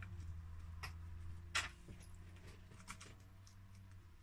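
A few faint, sharp ticks and taps of small plastic and metal calculator parts being handled and probed with a small tool, over a steady low hum.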